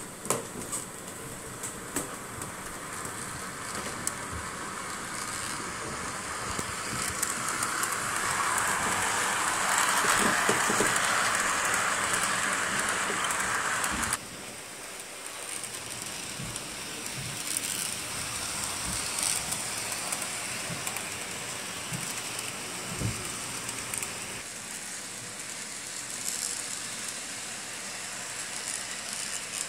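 HO scale model train running on its track: a steady hissing rumble of wheels on rail and the locomotive's motor, with scattered clicks. It grows louder as the train nears, cuts off suddenly about halfway through, then carries on more quietly.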